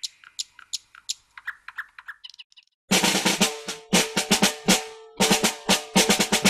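Faint, quick chirping ticks, then about three seconds in a drum kit starts playing a fast pattern of snare and bass drum hits, the snare ringing after each stroke.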